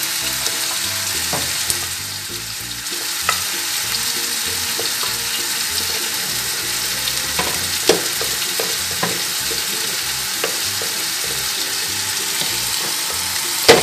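Wooden spoon stirring a flour-and-milk béchamel in a stainless steel pot, with a few light knocks of the spoon against the pot, over a steady high hiss.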